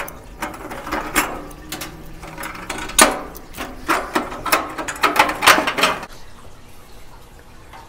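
Wire burner retaining clips being worked off their metal brackets with pliers: a quick, irregular run of small metallic clicks and scrapes for about six seconds.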